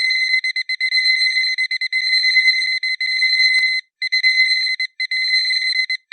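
Electronic alarm clock beeping a piercing high tone in rapid, slightly uneven pulses. It breaks off briefly three times in the second half, and there is a faint click about three and a half seconds in.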